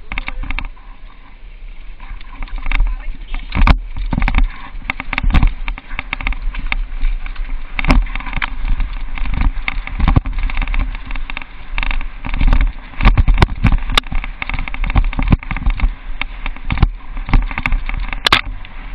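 Downhill mountain bike ridden fast over a rough dirt trail, picked up by a camera mounted on the bike or rider: a continuous rattle and clatter with frequent sharp knocks as it hits bumps, over a low wind rumble on the microphone.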